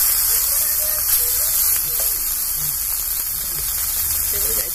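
Small fish sizzling in hot mustard oil on an iron tawa, a steady hiss of frying while they are turned with a metal spatula.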